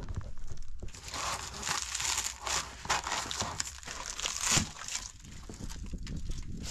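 Plastic bathroom fittings being broken up and torn out during demolition: irregular cracking, crinkling and knocking, with a louder crack about four and a half seconds in.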